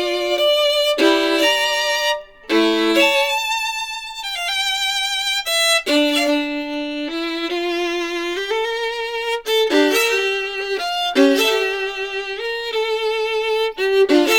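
Violin music with vibrato, a melody of held and moving notes, played from a vinyl record by a Denon DL-103R moving-coil cartridge and heard straight from the phono preamp's output.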